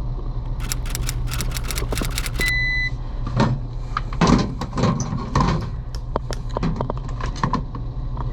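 A fast run of sharp clicks, then a short high electronic beep lasting about half a second, over a steady low hum. Irregular knocks and rustles of handling follow.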